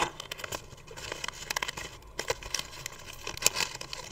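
A person chewing a light, airy snack that she likens to freeze-dried food: a run of crisp crackling crunches, many small snaps close together.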